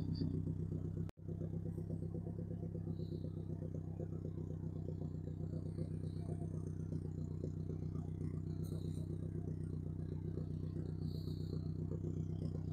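Saab B204 turbocharged four-cylinder engine in a Corsa B, idling steadily through its exhaust, with a brief break about a second in.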